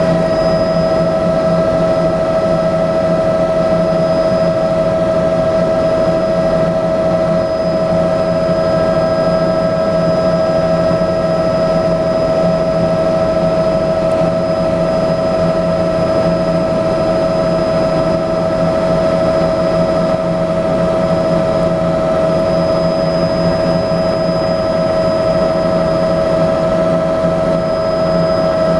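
Bell 206B-3 JetRanger III helicopter in flight, heard from inside the cabin: the steady drone of its Allison 250 turboshaft engine and rotors, with a constant pitched whine over it.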